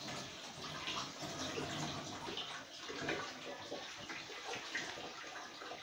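Pan of pasta boiling on the hob, the water bubbling with many small irregular pops.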